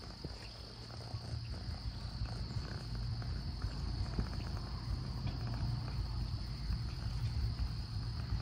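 Insects chirring in one steady high tone, over a low rumble.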